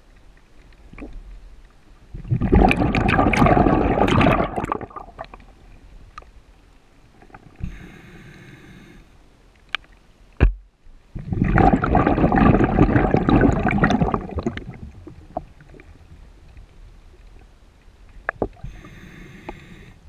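Scuba diver breathing underwater through a sidemount regulator: a short hiss on each inhale, then a long rush of exhaust bubbles on the exhale, twice.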